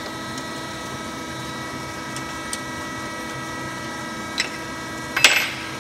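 A hand tool working the screws that fix the base of a soap stamping machine's metal mold: a few faint clicks over a steady hum, then a short, louder metal clatter about five seconds in.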